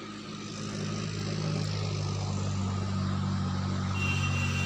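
A motor vehicle's engine running steadily: an even low hum over a haze of road noise.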